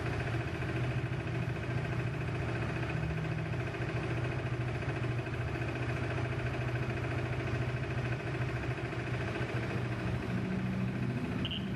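Motorcycle engine idling steadily. Just at the end a short high-pitched beep starts: a piezo buzzer test lead touching the live turn-signal terminal, marking the positive wire.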